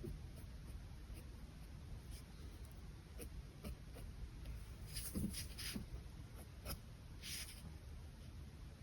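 Pen scratching on paper in short, separate sketching strokes, with a quick run of several strokes about five seconds in.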